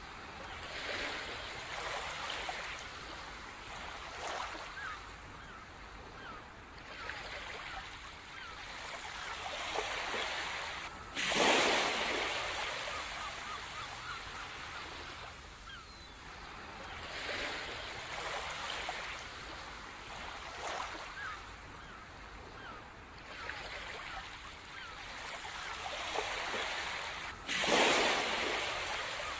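Ocean surf washing on a beach, swelling and ebbing every few seconds, with two bigger waves breaking suddenly, one about a third of the way in and one near the end.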